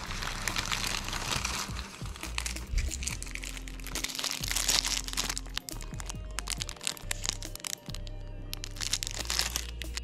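Background music with a steady bass line, over the rustle and crinkle of a shopping bag, tissue paper and plastic wrap being handled, with scattered small clicks, in two main bursts near the start and about halfway through.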